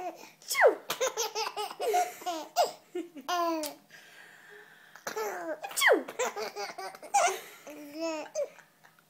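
A baby of about seven months laughing in repeated giggling bursts, in two bouts with a short pause a little under four seconds in.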